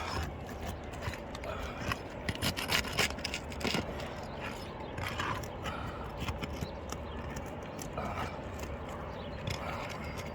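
Irregular scraping and clicking of a tool working against roof shingles as they are pried loose for a shingle repair. The strokes are densest in the first few seconds, then sparser.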